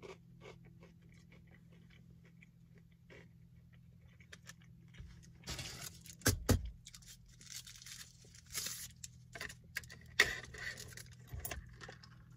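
Quiet chewing of a crispy fried chicken tender, then paper food packaging rustling and crinkling with a few sharp knocks about six and ten seconds in, as a drink cup is handled.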